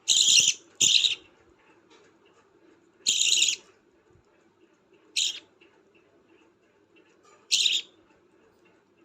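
Budgerigar chick about two weeks old giving five short raspy begging calls, two close together at the start and then three more spaced out, typical of a chick asking for food at hand-feeding.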